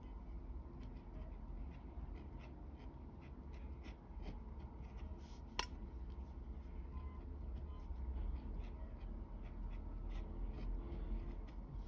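Pen writing on paper: a run of short, scratchy strokes as characters are written, with one sharp click a little past halfway, over a low steady hum.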